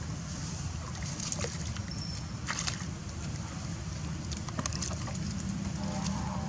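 Water sloshing and splashing as macaques wade and swim through a muddy pool, with a few short sharp splashes over a steady low rumble and hiss.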